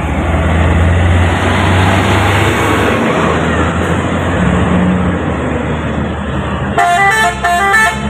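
Heavy diesel trucks passing close by, with a low engine drone and tyre noise. About seven seconds in, a telolet multi-tone air horn plays a quick run of stepped notes.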